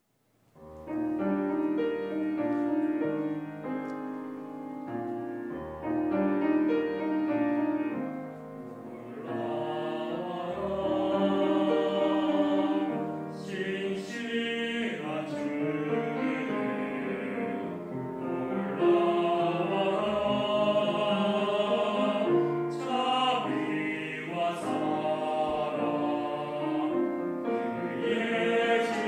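Church choir singing a Korean hymn anthem with piano accompaniment. The music starts about half a second in.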